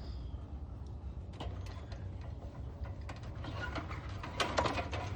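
Scattered light clicks and rattles of equipment being handled, busiest about four seconds in, over a low steady rumble.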